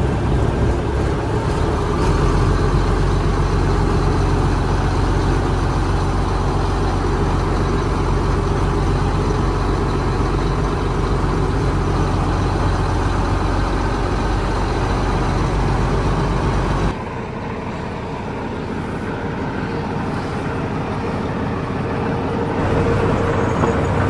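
John Deere 50-series diesel tractor engine running steadily, heard from inside the cab. About 17 seconds in the sound drops abruptly to a quieter engine hum.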